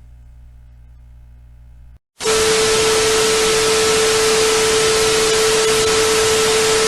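A low steady hum, a brief dropout to silence, then about two seconds in a sudden loud burst of static hiss with a steady mid-pitched tone running through it, which cuts off abruptly near the end.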